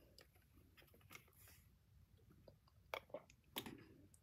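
Near silence, with a few faint mouth clicks and gulps from sipping apple juice through a juice-box straw, most of them about three to four seconds in.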